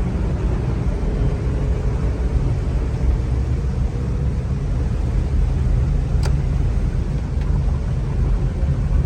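A car driving on a rain-flooded road: a steady low rumble of engine and road noise, with two faint clicks past the middle.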